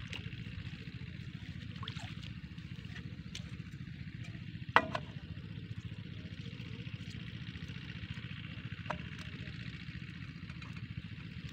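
A single sharp knock against the pump's metal fittings about five seconds in, over a steady low hum and hiss.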